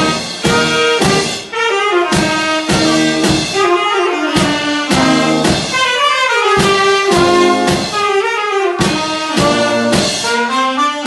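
Small live band of tuba, euphonium, alto saxophones and trombone playing a tune in a jazzy style, with a drum kit keeping a steady beat of about two strikes a second.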